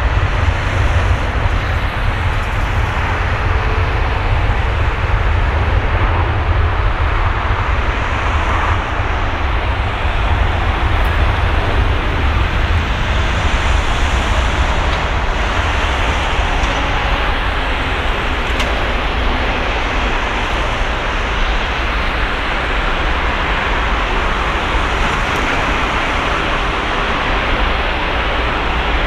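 Twin Rolls-Royce Trent 700 turbofans of an Airbus A330-300 running at takeoff thrust during the takeoff roll. The noise is a loud, steady rush with a deep rumble and eases slightly as the jet moves away.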